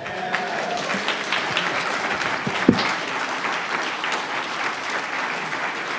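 Audience applauding steadily, with a single thump about two and a half seconds in.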